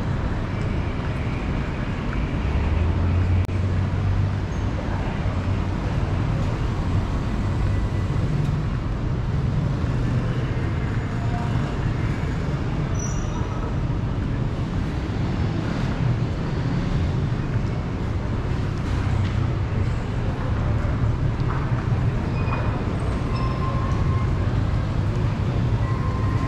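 City street traffic: a steady low rumble of passing vehicle engines and tyre noise.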